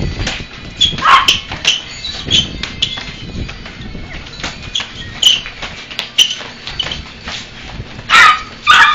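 Small white dog barking and yapping over and over at two men boxing, with sharp smacks of boxing-glove punches in between; the loudest bursts come near the end.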